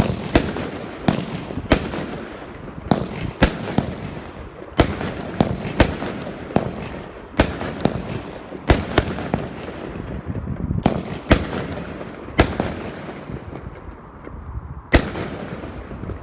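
Fireworks going off: about twenty sharp bangs at irregular intervals over a continuous crackle, the crackle thinning out near the end.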